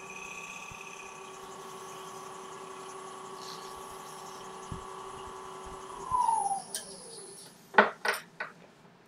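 Wood lathe running with a steady motor whine while wax is worked into the inside of the turning box. About six seconds in, the lathe is switched off and the whine falls in pitch as it spins down, followed by three sharp knocks.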